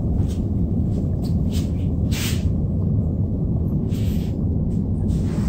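A steady low rumble, with a few faint rustles and clicks as a bag is rummaged through.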